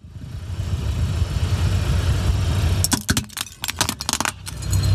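A car tyre crushing a hard plastic toy: a quick cluster of sharp cracks and snaps about three seconds in, lasting about a second and a half, over the steady low rumble of the car.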